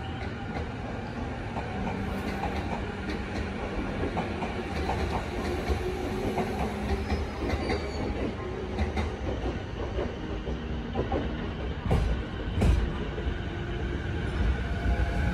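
JR East E233 series electric commuter train pulling out of a station: a steady motor and machinery hum, then wheels clicking over rail joints twice about twelve seconds in as the train gathers speed.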